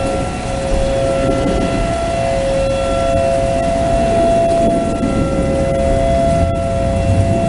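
Tornado warning siren sounding a steady two-pitch tone, held without rising or falling, over a low rumbling noise.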